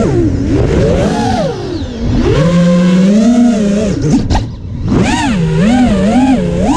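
Racing quadcopter's four Emax 2306 2400KV brushless motors whining, the pitch sweeping up and down quickly with the throttle. A little past four seconds in the level drops briefly and the pitch swoops sharply.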